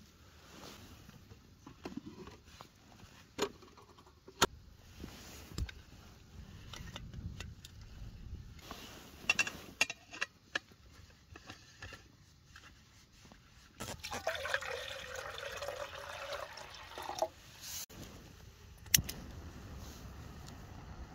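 Camp cooking kit being handled, with scattered clicks and knocks. About fourteen seconds in, water is poured out for roughly three seconds while a brew is made.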